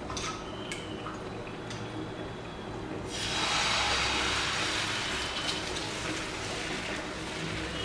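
Pearl millet dosa batter sizzling as it is poured onto a hot tawa, a sudden hiss about three seconds in that slowly fades while the ladle spreads the batter in circles. A few faint clicks come before it.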